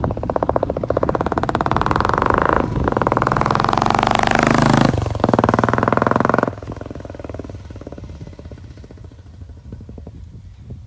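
A Royal Enfield Classic 350 BS6's single-cylinder engine breathing through a loud K-Indori aftermarket silencer as the bike rides past. It accelerates through two brief gear-change breaks, its pitch drops as it passes about five seconds in, then the sound falls off and fades into the distance.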